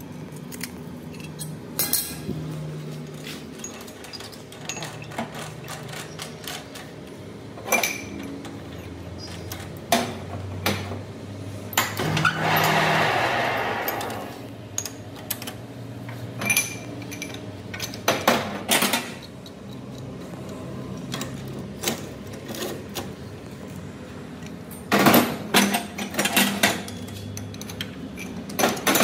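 Metal hand tools and steel ball-joint parts being handled and struck: scattered clinks and knocks, a quick run of sharp hits near the end, and a short rushing noise lasting about two seconds around the middle.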